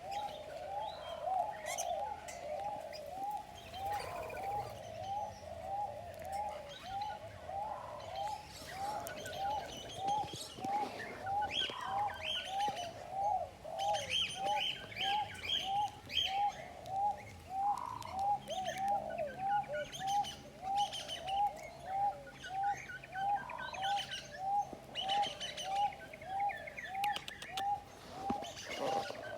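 A bird calling one short, hooked note over and over, about twice a second, with other birds chirping higher up now and then.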